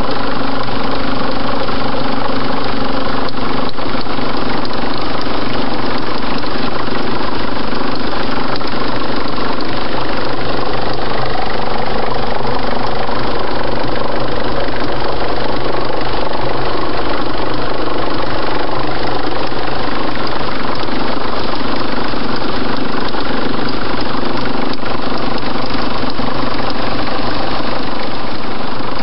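Car engine running steadily at idle, its sound even throughout with no revving.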